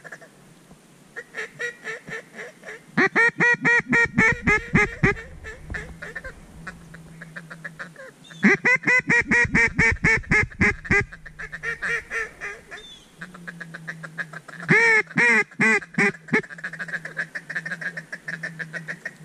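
Mallard duck calls blown by hunters: three loud series of quacks, each a run of about ten evenly spaced notes that taper off, with softer, quicker chatter between the series.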